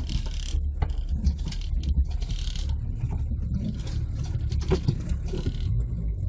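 Diesel Nissan Patrol 4x4's engine running low and steady while wading a shallow river, heard from inside the cab, with a few sharp knocks and short bursts of splashing water.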